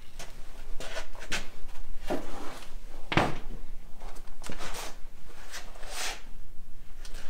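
Heavy MDF door swung open and shut several times on a homemade hinge, a series of swishes and knocks with the loudest knock about three seconds in, as the hinge is load-tested.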